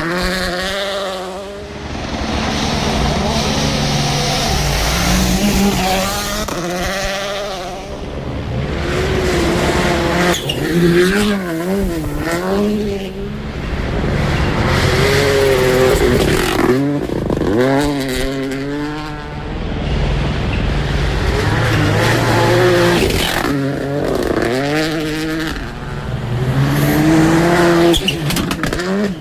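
Turbocharged WRC Rally1 rally cars at full attack on a gravel stage: engines revving hard, pitch climbing and dropping again and again through gear changes and lifts for corners, over several passes.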